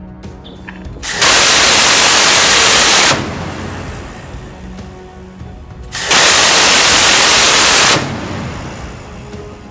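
Two loud bursts of shipboard weapons fire, each about two seconds long, starting and stopping abruptly, over background music.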